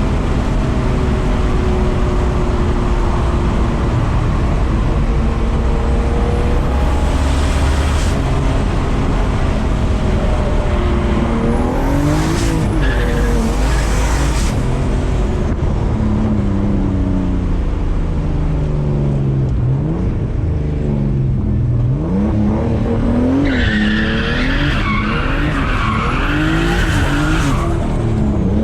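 Turbocharged BMW E36 engine revving up and down repeatedly, its pitch climbing and dropping many times in quick succession in the second half. Bursts of higher, rougher noise come over it twice, the longer one near the end.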